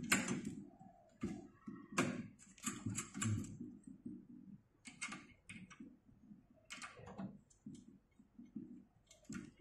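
Small metal screw on an elliptical trainer's front upright being turned and tightened by hand: irregular light clicks and scrapes of metal and fingers, coming in short clusters with pauses between.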